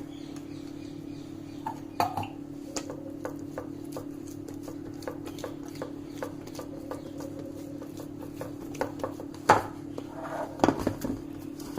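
Oiled fingers pressing and spreading soft focaccia dough in a greased baking tray, fingertips tapping lightly against the tray about twice a second, with a few louder knocks near the end. A steady low hum runs underneath.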